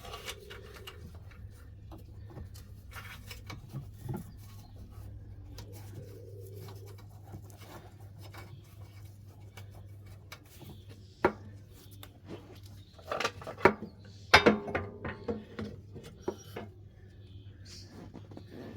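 Small metal clicks and scrapes of hand work as a safety pin is worked into the Range Rover Sport's rear air spring fitting in a cramped space, with a louder cluster of clanks near the middle of the later half. A steady low hum runs underneath.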